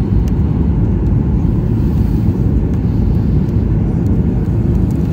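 Boeing 737 jet noise, a loud steady low rumble of engines and airflow that holds even throughout.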